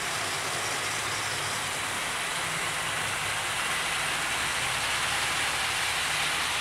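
Several 00 gauge model trains running at once, among them an older Hornby Flying Scotsman pulling Pullman coaches past close by: a steady rolling noise of wheels on the track with a low motor hum.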